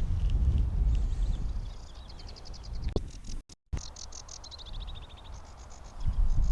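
Sedge warbler singing: fast rattling trills and chatter that start about two seconds in, broken by a brief dropout in the middle. Wind rumbles on the microphone at the start and again near the end.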